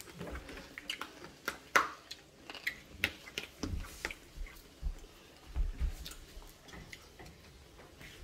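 Mealtime eating sounds: a metal fork clicking and scraping against a plastic bowl in scattered sharp taps, the loudest about two seconds in, with a few dull knocks along the way.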